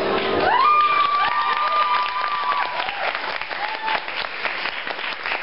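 The last chord of an acoustic guitar song dies away as the audience breaks into applause and cheers. One long whistle rises and then holds for about two seconds near the start, with shorter whoops after it.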